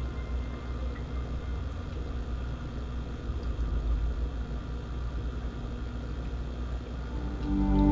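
A steady low rumble, with soft new-age music fading in near the end.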